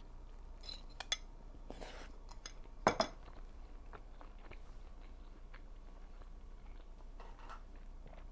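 Fork clinking and scraping against a dish of pasta during eating: a few light clicks, a short scrape, then two louder knocks about three seconds in, followed by faint ticks.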